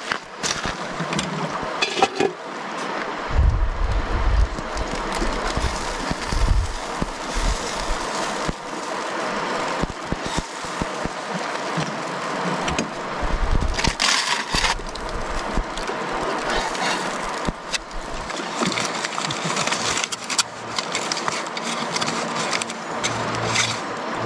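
Steady rushing of a fast river, with gusts of wind rumbling on the microphone now and then and scattered light clicks and knocks.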